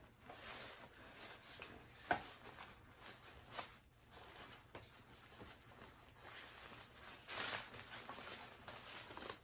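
Faint rustling of the prop's black synthetic robe and mask being handled, with a single sharp knock about two seconds in.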